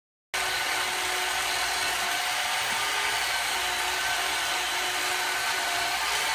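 A power tool motor running steadily, starting abruptly a moment in as the sound cuts in.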